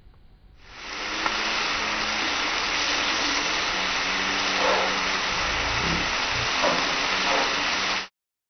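Sliced bell peppers, zucchini and onion sizzling on a hot 36-inch Blackstone flat-top griddle: a steady, loud hiss that starts about half a second in and cuts off suddenly near the end. A few low knocks come partway through.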